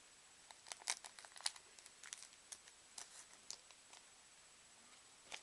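Faint scattered clicks and rustles of a freshly opened trading-card pack and its cards being handled, busiest in the first few seconds with one more click near the end.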